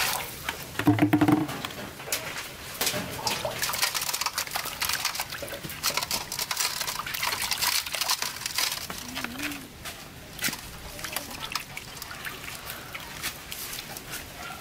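Water splashing and sloshing in a metal basin as hands rub and rinse pieces of a skinned snake, with many small splashes throughout. A short, loud call about a second in.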